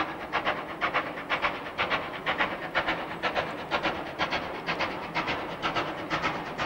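Approaching steam locomotive working under steam, its exhaust beats coming as a rapid, even chuffing.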